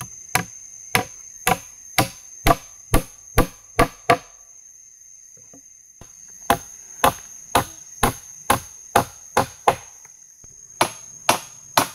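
Nails being hammered into wood: steady sharp blows about two a second, in runs broken by a pause of about two seconds near the middle. A steady high insect whine runs underneath.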